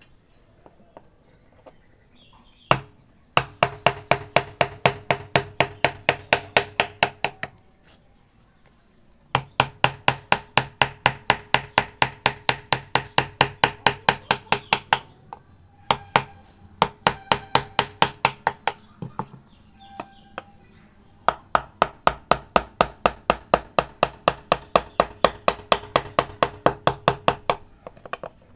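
A mallet tapping a wood-carving chisel into wood in rapid, even strikes, about four or five a second, in runs of several seconds with short pauses between.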